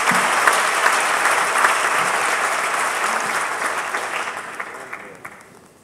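Audience applauding, a dense patter of many hands clapping that dies away over the last second or two.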